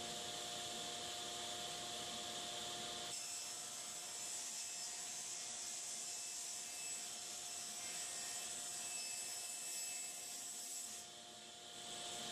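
Table saw running with a steady motor hum while its blade rips a board along its edge. A steady high hiss from the cut comes in about three seconds in and drops away about a second before the end, leaving the saw spinning free.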